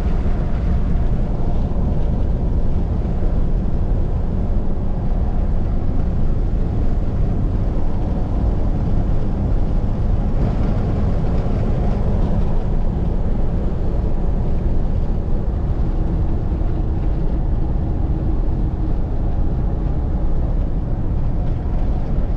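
Truck driving at a steady speed: a constant rumble of engine and road noise heard from inside the cab, with some wind noise.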